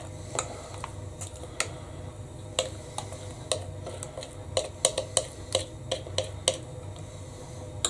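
A metal spoon clinking and scraping against a glass mixing bowl as thick banana bread batter is scooped out of it: irregular clicks, with a quicker run of them a little past the middle.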